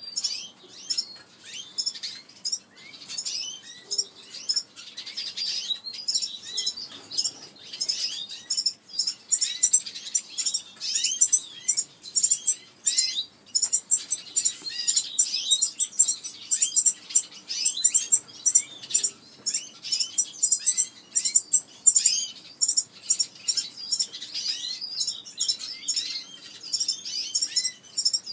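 Red-fronted serins chirping and twittering without a break: a dense run of short, high, quick notes, many of them sliding downward, several each second.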